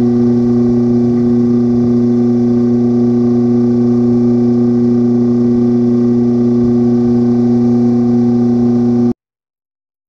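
A loud, steady hum of several held tones that never changes, cutting off abruptly about nine seconds in.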